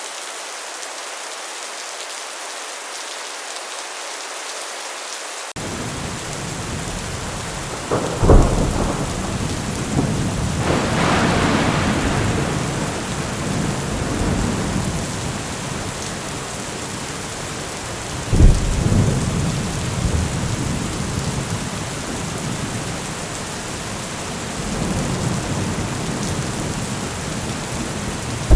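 Heavy rain drumming steadily on a metal roof during a thunderstorm. A deep rumble sets in about five seconds in, then two loud thunderclaps, about eight and eighteen seconds in, each rolling off into long rumbling.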